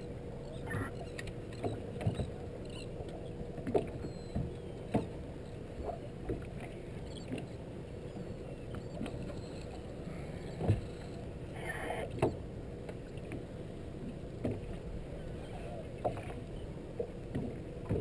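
Small fishing boat adrift at sea: a steady low rumble of water and wind against the hull, with a faint steady hum and irregular knocks and thumps on the deck every second or two.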